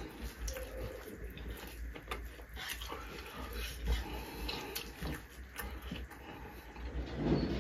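Eating by hand: fingers squelching and mixing rice and curry on metal plates, with chewing and small mouth noises, a scatter of soft clicks over a low steady hum.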